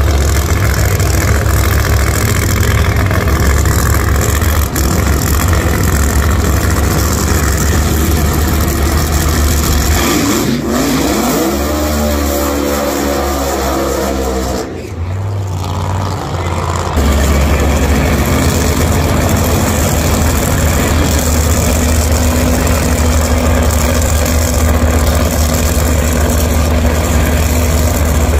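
Drag racing cars' V8 engines running hard at the start line, with engine revs rising and falling during a burnout about halfway through, then steady heavy engine noise as the cars stage.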